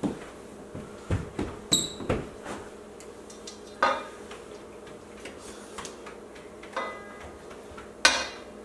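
Kitchen clatter: a spoon and utensils knocking and clinking against a stainless steel mixing bowl and the counter, in scattered short knocks.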